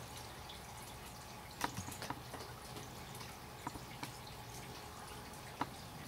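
Water dripping from rain-soaked trees and leaves after an overnight rain: scattered irregular drips, the loudest about a second and a half in and again near the end, over a faint steady background.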